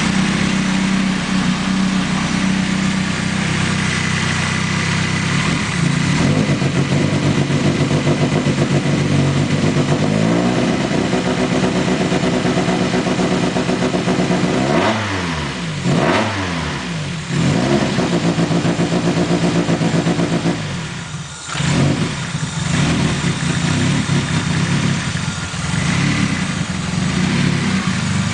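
1999 Mazda Miata four-cylinder engine running at idle, its revs rising and falling a few times around the middle and sagging sharply once about two-thirds through. It runs badly because a wire to the air flow meter is not making contact.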